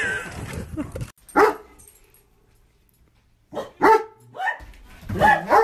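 A dog barking: one loud bark about a second and a half in, then, after a brief lull, a run of short barks from about three and a half seconds in, picking up again near the end.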